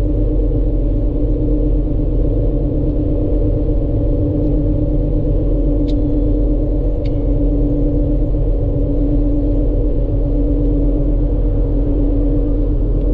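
A car driving: a steady low engine and road rumble with a constant hum, and two faint clicks about six and seven seconds in.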